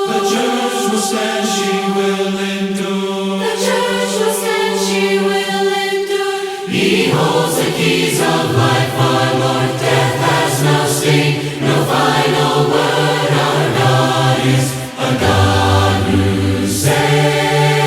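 A choir singing hymn harmony in long held notes, with no words made out. A lower part comes in about seven seconds in, and the chords change every second or two after that.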